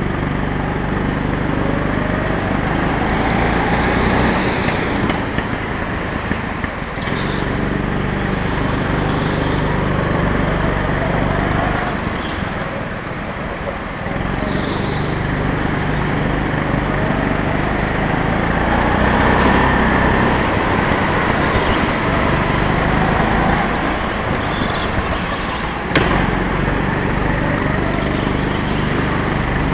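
Go-kart's small engine heard onboard, its pitch climbing on the straights and dropping off as the throttle lifts for corners, several times over. A single sharp knock about 26 seconds in.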